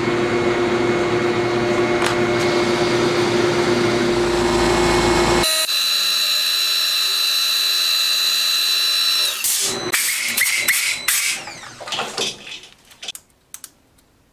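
Metal lathe running while cutting an aluminium cam bearing holder, a steady machining noise with a steady hum under it that changes abruptly about five seconds in. About nine seconds in the lathe stops, and light clicks and knocks of handling the part follow as it dies away.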